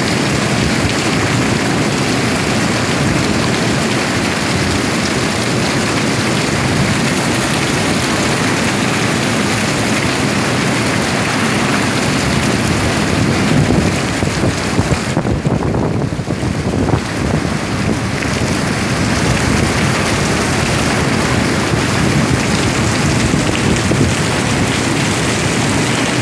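Heavy downpour: a loud, steady rush of rain on the street and the awning overhead, turning briefly duller about fifteen seconds in.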